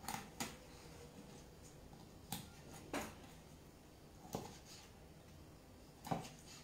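Kitchen knife tapping and scraping on a wooden cutting board while skinning a salmon fillet: about six sharp, irregular knocks.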